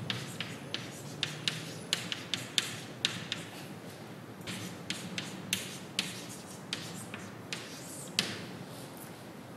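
Chalk tapping and scraping on a blackboard as words are written: irregular sharp taps, a couple a second, with the loudest tap about eight seconds in.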